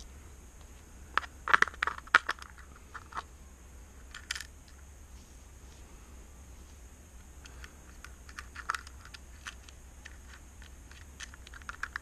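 Light clicks and taps of small guitar-wiring parts being handled: a metal potentiometer being fitted to a jig, with wire and a capacitor. The sharpest cluster of clicks comes a second or two in, with sparser, softer ones after.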